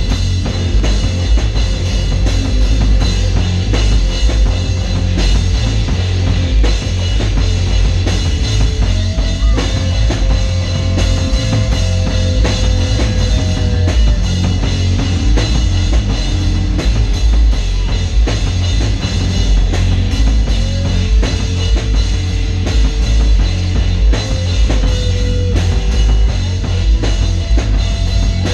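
Live rock band playing without vocals: electric guitars and bass over a drum kit, loud and steady. A guitar holds long notes that bend slightly in pitch, twice in the passage.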